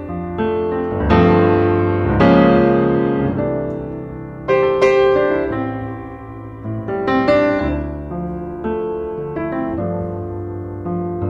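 Background piano music, with notes and chords struck every second or two and left to ring out.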